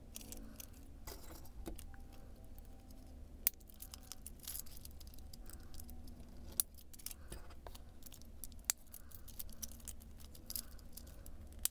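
Light clicks and rattles of a small plastic robot kit being handled, its thin steel wire linkage rods and hooks ticking against the plastic frame, with a few sharper clicks scattered through.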